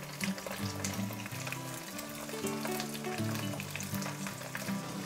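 Small whole sandfish shallow-frying in hot oil in a pan, a continuous crackling sizzle, with low steady tones held underneath.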